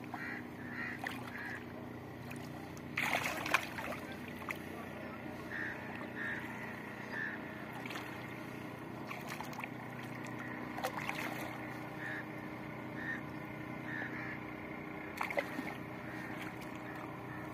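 Hands splashing and sloshing in shallow water at a muddy bank edge, with sharper splashes about three seconds in and again around eleven and fifteen seconds. Under it runs a steady low hum and short high peeps, about two a second at times.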